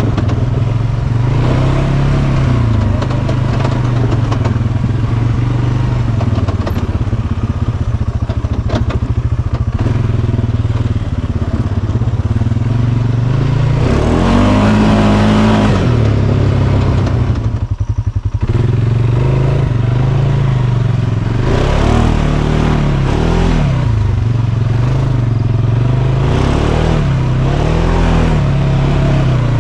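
Polaris Sportsman 570 ATV's 567cc single-cylinder four-stroke engine running under way, its pitch rising and falling again and again as the throttle is opened and eased. A little past halfway it briefly drops away when the throttle is lifted.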